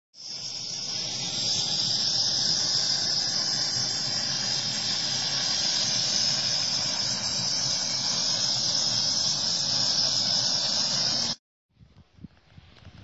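Small gas-cylinder stove burner hissing steadily under a metal kettle; the hiss stops suddenly near the end.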